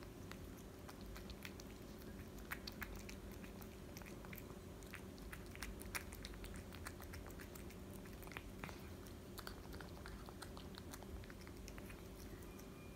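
A cat eating soft shredded meat from a small ceramic bowl: faint, irregular smacking, chewing and licking clicks.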